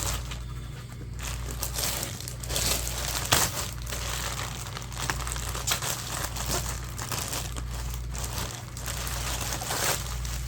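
Packaging of a new motorcycle brake shoe being handled and opened by hand, crinkling and rustling with irregular sharp crackles. A steady low hum runs underneath.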